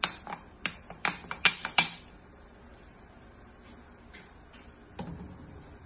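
Plastic bottle crackling with sharp clicks as it is gripped and squeezed to pour palm oil into the pot: about eight clicks in the first two seconds, then quiet apart from one soft knock about five seconds in.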